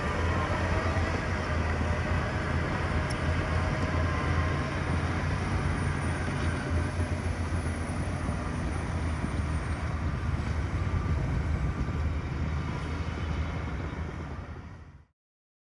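Heavy diesel earthmoving machinery running steadily with a deep low rumble, fading out near the end.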